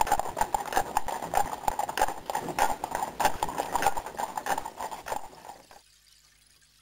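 Hooves of a team of Friesian horses clip-clopping in a dense, irregular patter as they pull a carriage, fading out near the end.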